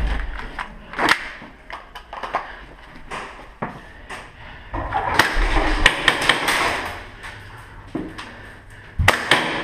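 Irregular sharp knocks and clicks from a player moving and handling gear, with a noisy shuffling stretch about halfway through and a louder knock near the end.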